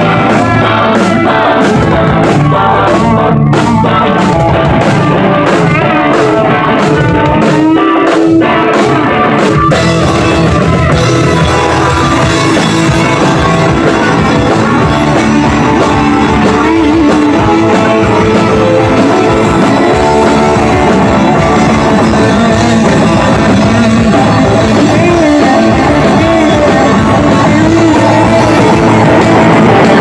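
Live punk band playing loud: distorted electric guitar, bass and drums with vocals. For the first ten seconds the band hits stop-start accents with brief gaps, then settles into a steady full-band section.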